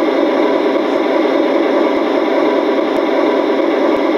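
Sound decoder of an LGB G-scale Southern Pacific SD40 model locomotive playing a steady diesel engine rumble through the model's small speaker.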